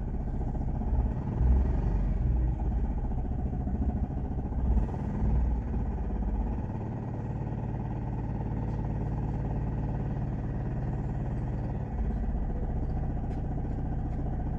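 Maruti Suzuki Celerio ZDi's two-cylinder diesel engine idling just after a start. It runs unevenly for the first few seconds, then settles into a steady idle.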